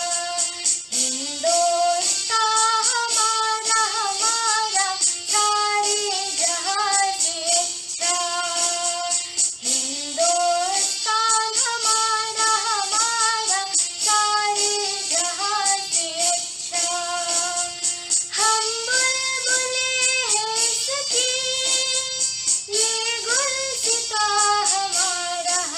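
A patriotic song sung by a young female voice, with instrumental backing and a steady beat.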